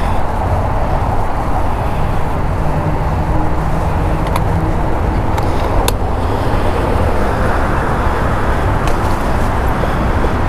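Steady rush of riding wind on the microphone while cycling, mixed with car traffic passing on the adjacent road, with a few faint clicks around the middle.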